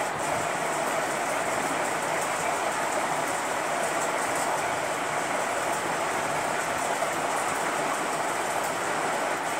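Steady, even rushing noise with no distinct knocks or tones.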